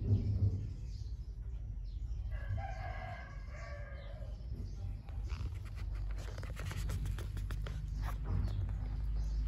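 One long bird call lasting about two seconds, starting about two seconds in, over a steady low hum. A run of rapid faint clicks follows in the second half.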